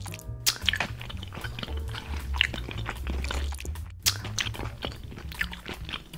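Background music with a steady low bass, over a busy run of crisp clicks and crunching sounds.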